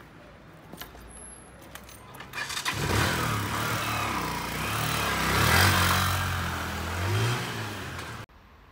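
Motorcycle engine starting about two and a half seconds in, then running and revving up and down, after a few light clicks. It cuts off abruptly near the end.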